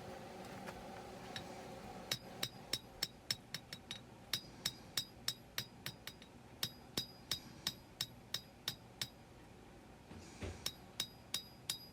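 Hand hammer striking a 52100 steel knife blade on the anvil: sharp, ringing blows about three a second, stopping briefly near the end and then starting again.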